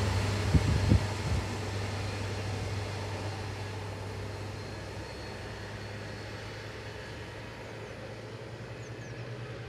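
Diesel engine of a Colas Rail track machine running with a steady low drone, fading as the machine moves away down the line. A few sharp knocks in the first second and a half.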